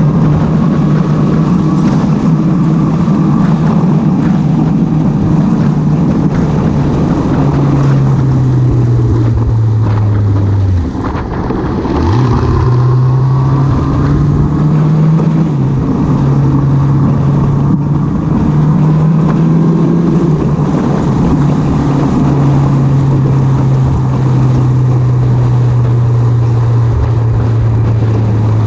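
Motorcycle engine running at road speed, heard from the bike carrying the camera, over a steady rush of noise. Its note holds steady with a few small drops in pitch, dips briefly about ten seconds in, then climbs back up as the bike revs again.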